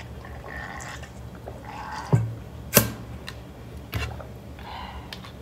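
Someone drinking from a plastic water bottle: soft swallowing sounds and a few sharp clicks and knocks, the loudest a little after two seconds in, then a knock about four seconds in as the bottle is set down.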